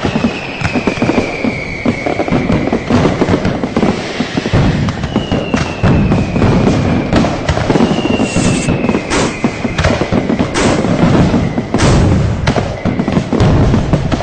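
Dense New Year firecracker and fireworks barrage: continuous rapid crackling with a few louder bangs in the second half, and three whistling fireworks that glide slowly down in pitch.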